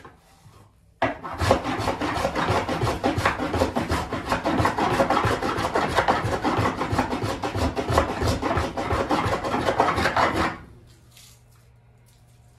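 Wood being rasped by hand with rapid back-and-forth strokes, about seven a second, starting about a second in and stopping suddenly near the end.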